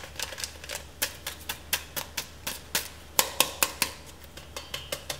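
A small plastic sachet of baker's yeast crackling and clicking in the fingers as it is torn open and emptied over a bowl of flour: quick, sharp, irregular clicks, several a second.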